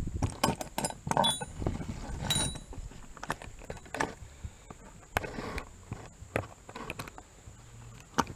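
A wrench prying at a battered metal exhaust turbo whistle: irregular metal clicks, clinks and scrapes, a couple of them with a short ring.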